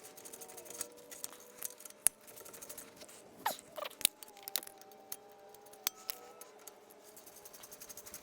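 Socket ratchet clicking in quick runs of small ticks as a brake caliper bolt is run in and tightened, with a few louder metal clinks of the tools against the caliper.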